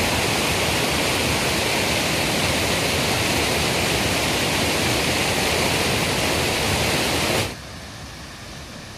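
Waterfall rushing steadily and loudly. About seven and a half seconds in it cuts off abruptly to a much quieter, duller rush.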